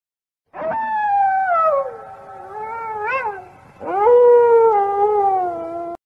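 A cat yowling in two long, drawn-out wails, each sliding down in pitch. The first starts about half a second in and the second about four seconds in.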